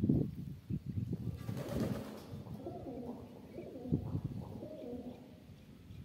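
Pigeons cooing in low, repeated calls, with a brief rush of noise about a second and a half in.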